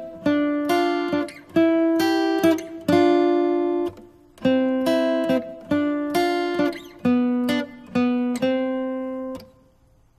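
Background music: an acoustic guitar picking a slow melody of single notes and two-note chords that ring and fade. There is a brief pause about four seconds in, and the playing dies away shortly before the end.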